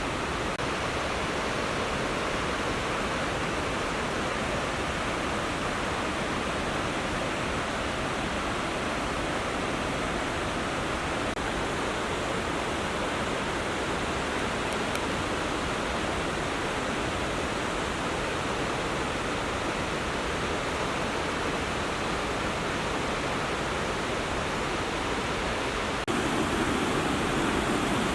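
Steady rushing roar of Hagoromo Falls, a tall multi-tiered cascade, falling water without a break. It gets a little louder and deeper near the end.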